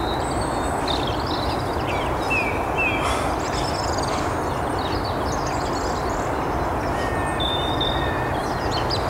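Steady outdoor background rumble with small birds chirping and whistling in short calls over it.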